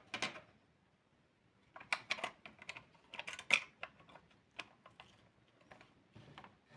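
Irregular clicks and taps of small hard parts being handled: one near the start, a quick flurry in the middle, then scattered single clicks.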